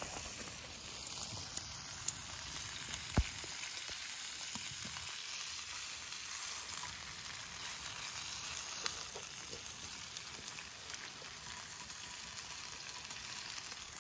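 Lake trout frying in a pan, a steady sizzling hiss with small crackles and one sharp click about three seconds in.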